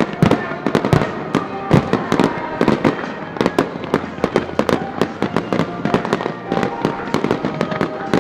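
Fireworks display going off: a dense, continuous run of sharp bangs and crackles, many a second, with music playing underneath.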